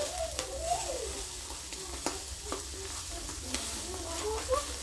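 Chicken wings and ribs sizzling over charcoal on a kettle grill, a steady hiss, with metal tongs clicking against the grate and meat a few times.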